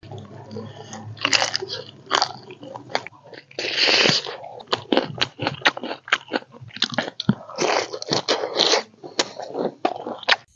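A person biting into and chewing crunchy food: an irregular run of sharp crunches with one longer, louder crunch about four seconds in.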